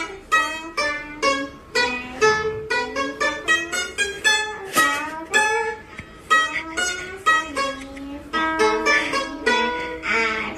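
Background music: a plucked string instrument playing a quick melody of short, separately picked notes.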